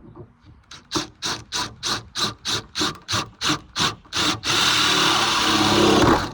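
A bigger hole being cut through a van's sheet-metal roof: about a dozen rhythmic rasping strokes, then a steady loud grinding for about two seconds that stops suddenly.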